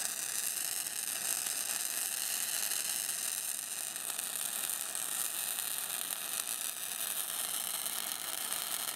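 Wire-feed welding arc running without a break on a steel shipping-container corner casting, giving a steady hiss.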